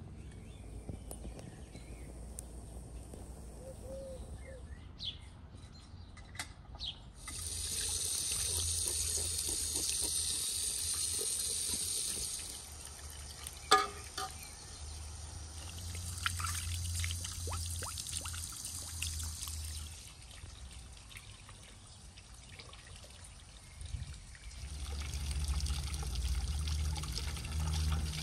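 Water from a garden tap pouring into an enamel basin while a raw whole chicken is washed in it. The pouring comes in three spells, with a single sharp knock about halfway through.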